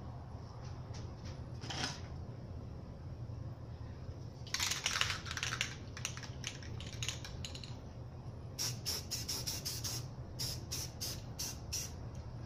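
Aerosol spray-paint can hissing in bursts: a brief spray, a longer one of about a second and a half, then a quick run of short sprays, about three or four a second, over a steady low hum.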